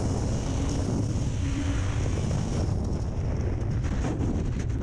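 Heavy, steady wind buffeting on the microphone of a camera mounted on a jet boat running at speed, with a faint engine tone underneath early on.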